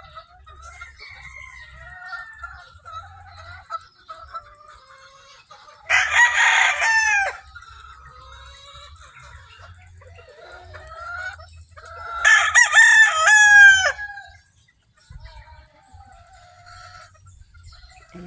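Chickens in a pen: a rooster crows twice, about six seconds apart, the second crow the longer and louder, while hens cluck softly in between.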